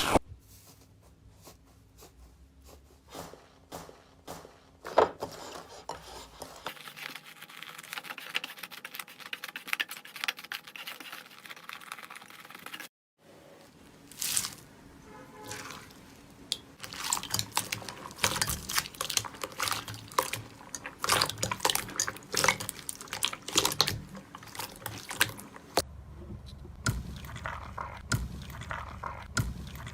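Slime being squeezed and pressed by hand, making wet squishes and many small sticky clicks and pops, across several short clips joined by cuts.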